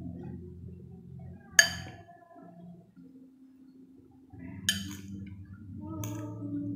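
Metal fork clinking against a ceramic plate: two sharp ringing clinks about three seconds apart, then a fainter tap near the end.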